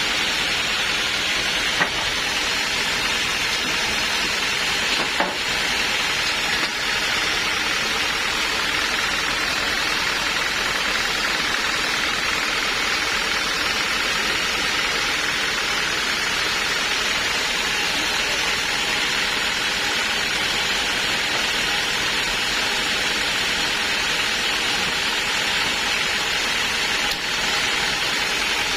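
Sawmill saw running with a steady, even noise, with a couple of brief knocks about two and five seconds in.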